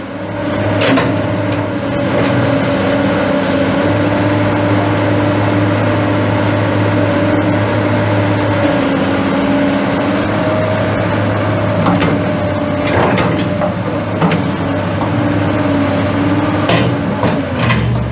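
A Kobelco SK250LC excavator's Mitsubishi 6D34 six-cylinder turbo diesel runs at a steady speed, with a few short metallic knocks now and then and a brief dip in engine pitch near the end.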